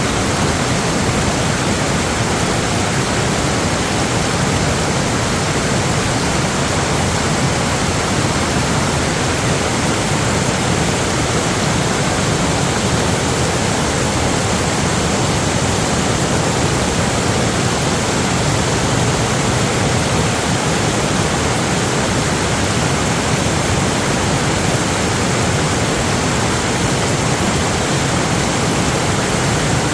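Loud, steady rushing of water, unchanging throughout, with no distinct pitch or individual splashes.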